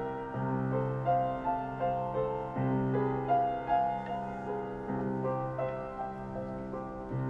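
Calm instrumental piano music: a slow melody of single notes over held low notes.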